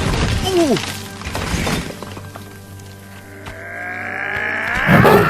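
Film score music over fight sound effects: a falling whoosh about half a second in, then rising held tones that swell into a sudden crash near the end.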